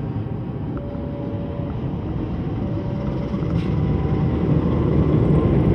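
Diesel locomotive rumbling past close by, growing louder as it draws level. A faint steady tone sounds on and off about every two seconds.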